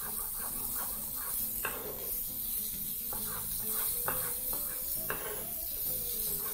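Chef's knife tapping irregularly on a wooden cutting board as tomato skin is sliced into thin julienne strips, over the steady hiss of pork ribs sizzling on a hot griddle.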